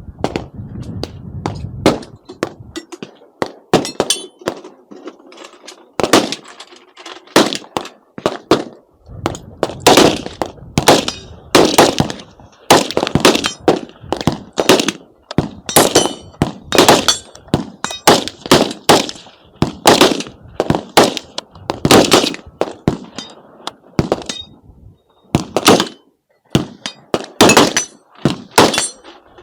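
Gunfire at a shooting range: a long, irregular string of loud, sharp single shots, about one or two a second, with some fired in quick pairs.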